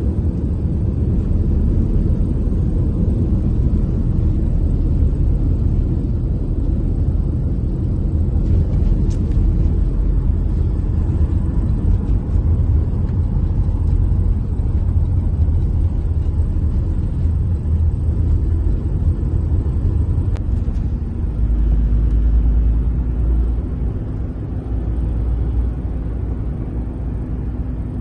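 Steady low rumble of road and engine noise heard from inside a moving car's cabin. A steady low hum joins in about three-quarters of the way through.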